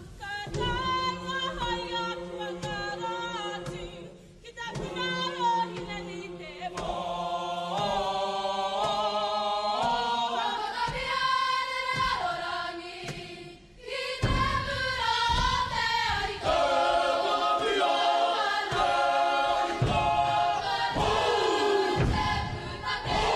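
A kapa haka group of women and men singing a Māori song together, with short breaks about four seconds in and halfway through. From about halfway the singing grows louder over a beat of low thumps.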